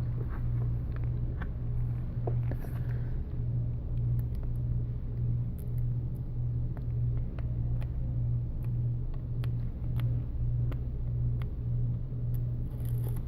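A steady low hum that pulses about one and a half times a second, with scattered light clicks and taps from small parts being handled.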